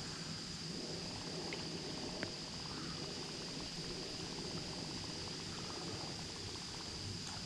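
Low wind rumble on the microphone, with a steady high-pitched tone and two faint ticks.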